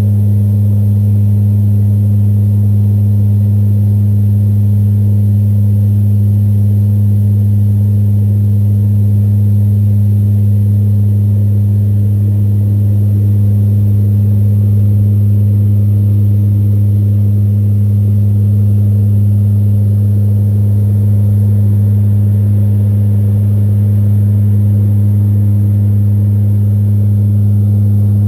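Loud, steady cabin drone of a C-130 Hercules in cruise: its four turboprop engines and propellers give a deep, unchanging hum with a rushing noise underneath.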